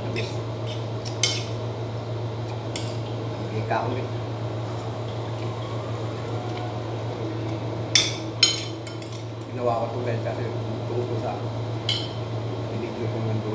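Metal spoon clinking against a dish while eating, a handful of sharp separate clinks with two close together about eight seconds in, over a steady low hum.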